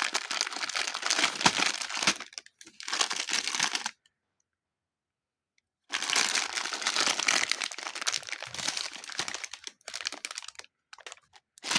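Old slime and super light clay being kneaded and squished by hand, a dense crackling, crinkling sound. It cuts out to dead silence for about two seconds in the middle, then resumes and thins to a few scattered clicks near the end.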